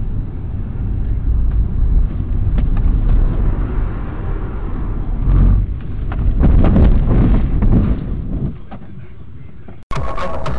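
Engine and tyre noise heard inside a moving car's cabin: a steady low rumble that swells louder about five and a half seconds in and again around seven seconds. It cuts off suddenly near the end.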